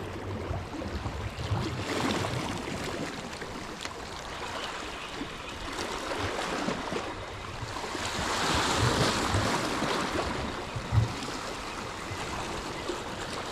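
Small sea waves washing and lapping against shoreline rocks, with one louder wash about two-thirds of the way through.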